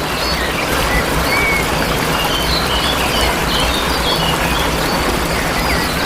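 Steady rush of falling water from a waterfall, with small songbirds chirping over it in short, high, scattered calls.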